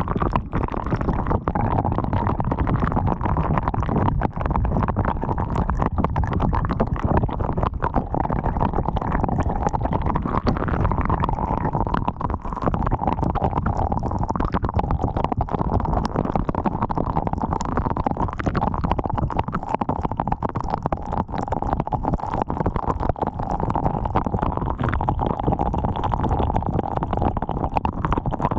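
Storm wind buffeting a GoPro's microphone in a steady rumbling rush, with wind-driven rain striking the camera as many sharp taps throughout.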